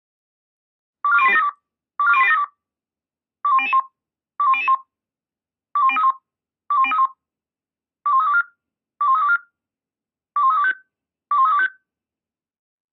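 Radio alerting tones from the dispatch centre: five pairs of short sequential-tone selective calls, each burst a quick run of stepping beeps, addressing the rescue units' pagers before the voice alarm announcement.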